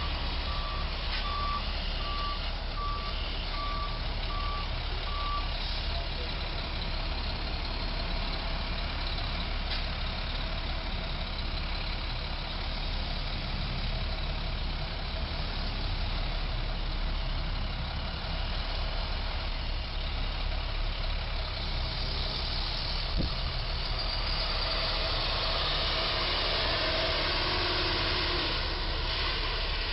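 A flatbed truck's reversing alarm beeps at an even pace, about three beeps every two seconds, for the first five seconds or so as the truck backs up, over steady engine and traffic noise. In the last third, the truck's engine noise grows louder as it pulls forward.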